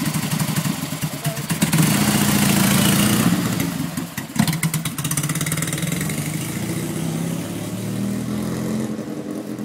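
1971 Laverda 750 SF's air-cooled parallel-twin engine, its carburettors freshly cleaned, revving hard about two seconds in, then running steadily as the bike pulls away and getting quieter near the end.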